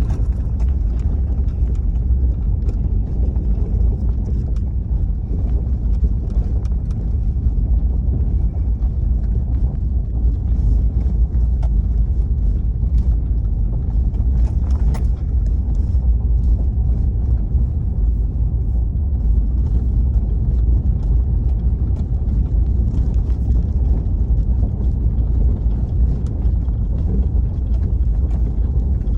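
A vehicle driving along a back road: a steady heavy low rumble of road and engine noise, with scattered small rattles and knocks throughout.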